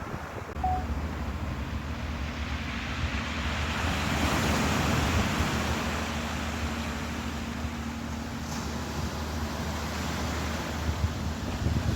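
Surf washing on the shore, swelling about four seconds in, with wind on the microphone and a steady low engine hum underneath.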